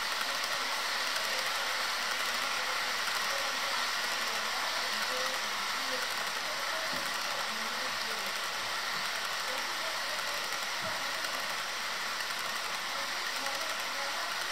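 HO scale model oil train's tank cars rolling along the track close by: a steady mechanical sound of small metal wheels running on the rails.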